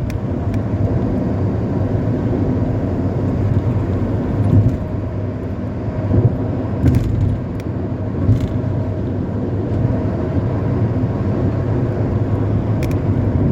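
Steady low drone of motor vehicles at highway speed, engine and road noise together, with a few short knocks scattered through.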